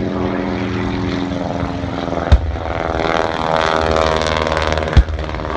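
Piston engines of vintage biplanes and a triplane droning as they fly low over the airfield, the pitch rising and then falling as one passes close. Two sharp bangs of ground pyrotechnics cut through, about two and a half seconds apart, the second the louder.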